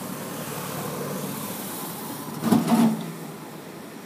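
Taipei Metro Wenhu line rubber-tyred train running slowly through the depot, a steady rumble and hiss, with a loud knock and rattle lasting about half a second, two and a half seconds in.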